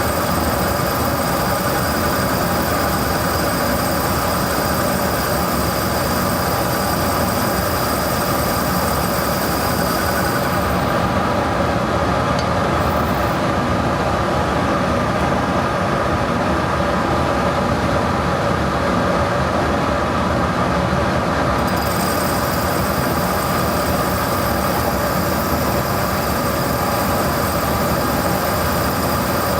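Metal lathe running steadily with a hum of fixed tones during a turning cut on a cast driver center; a high hiss above the hum drops away for about ten seconds in the middle.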